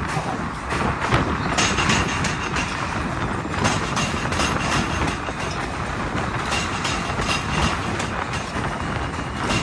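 New York City subway train running past on the bridge's steel track: a continuous rumble with repeated clacking of wheels over the rail joints and a faint steady high whine.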